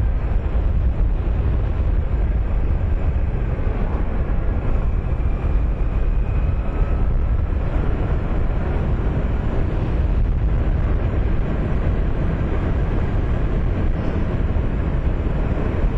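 A 2008 Honda Nighthawk 250, an air-cooled parallel twin, riding at a steady speed: a steady rush of wind on the microphone, with engine and road noise underneath.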